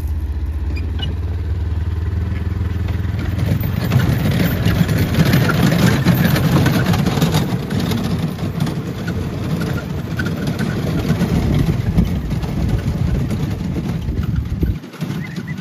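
Utility vehicle's engine idling with a steady low hum, then pulling away about three seconds in, towing a train of wheeled barrel cars that rumble and rattle over the dirt track.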